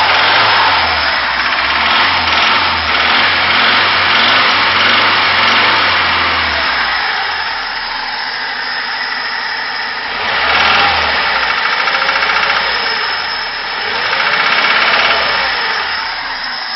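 VAZ Zhiguli four-cylinder engine running and being revved in surges: held up for the first six seconds, then two shorter blips about ten and fourteen seconds in. Through it comes a knock from connecting-rod bearings that have burnt out from oil starvation.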